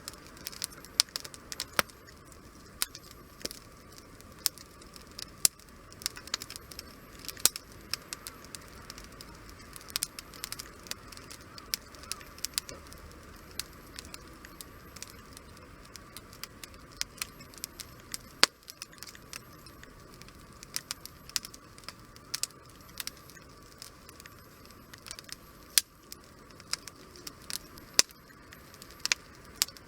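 Wood fire crackling: many irregular sharp pops and snaps over a soft steady hiss of burning.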